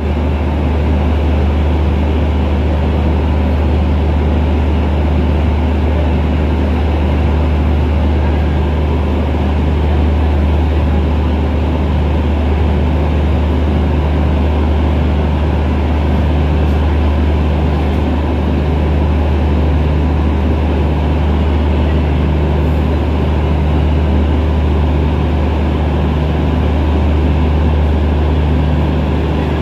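Idling train engine: a steady, loud low drone with a faint regular pulsing hum running through it.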